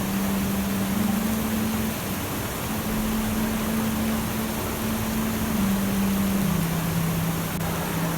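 Steady rushing noise like flowing water, under a soft low held tone that moves slowly between a few notes, stepping down in pitch near the end. No birdsong stands out.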